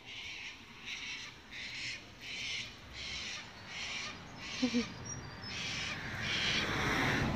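Harsh animal calls repeated at an even pace, about three every two seconds. Near the end a rising rush of a vehicle coming along the road builds over them.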